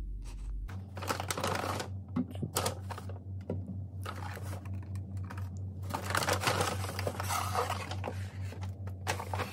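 Brown paper bag rustling and crinkling as a cardboard takeaway box and small food items are lifted out and set down, with irregular light knocks and clicks. A steady low hum runs underneath from about a second in.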